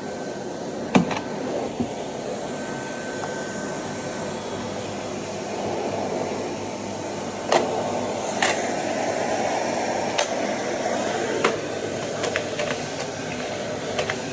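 Miele S224 vacuum cleaner running steadily with a thin high whine, and several sharp knocks, the loudest about a second in.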